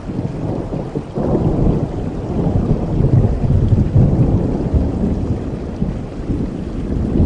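Thunderstorm recording: steady rain with a low rumble of thunder that swells about a second in, peaks midway and slowly fades.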